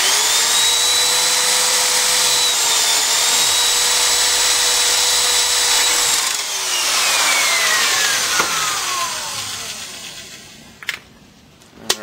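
Corded electric drill boring a hole through the bottom of an aluminium drink can: the motor starts abruptly and runs with a steady high whine for about six seconds, dipping briefly around three seconds in, then the trigger is let go and the whine falls in pitch as the drill spins down over several seconds.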